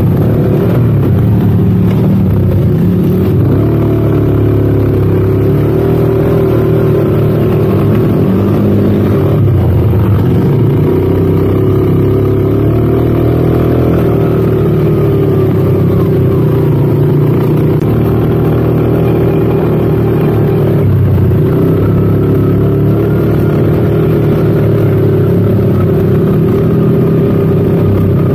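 ATV engine running while being ridden, its pitch rising and falling with the throttle.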